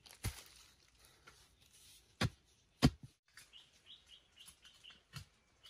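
Three dull knocks of wild tubers and soil being dug out and handled, the loudest near the middle, then a bird chirping in quick short notes, about three a second, through the second half.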